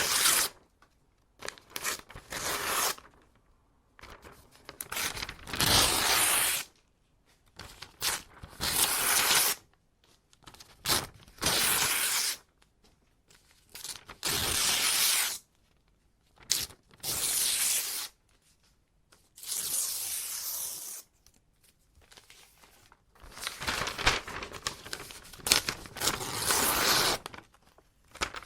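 Sheets of paper being ripped by hand: a run of separate tears, each lasting about a second, with short pauses between them.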